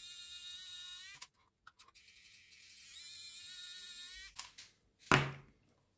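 Pen-style electric precision screwdriver running in two short bursts of about a second each, a steady high whine, as it backs the screws out of a small soap-dispenser pump. A few small clicks follow, then a sharp knock about five seconds in.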